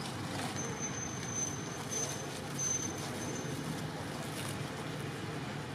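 Steady low outdoor background rumble like distant road traffic, with a thin high whistling tone coming and going for about three seconds in the first half.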